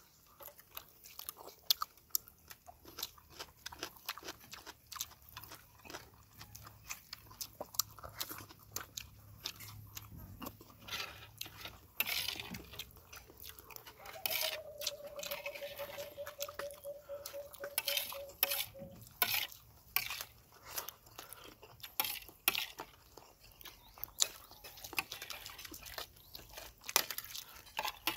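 Close-up eating sounds of people eating grilled fish, chicken and rice with their hands: steady chewing with many short lip smacks and crunches. Near the middle a drawn-out tone, falling slightly in pitch, sounds for about five seconds.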